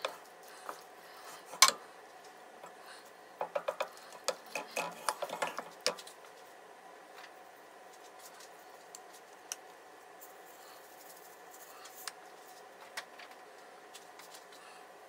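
Kitchen utensil clatter: a spatula knocking and scraping in a frying pan, with a sharp knock early and a quick run of clicks and knocks a few seconds in, then only scattered small ticks over a faint steady hum.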